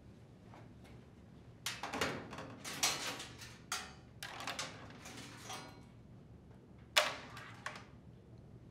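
Plastic dryer control panel being set onto the top of the cabinet and its wire harnesses fed through: scattered scrapes, rustles and clicks of plastic and wires, with a sharp click about seven seconds in.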